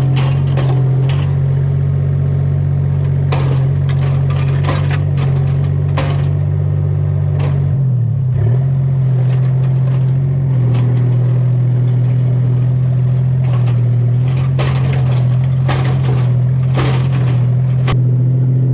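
Excavator engine running steadily, its pitch dipping briefly under load about eight seconds in, with scattered clanks and scrapes of the bucket working soil and stone.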